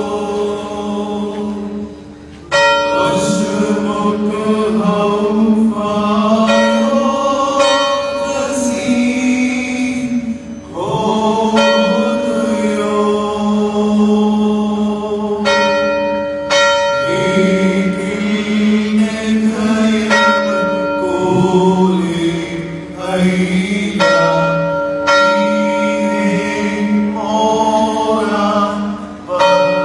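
A group of voices chanting a hymn while a bell is struck every few seconds, each stroke ringing on as a steady tone.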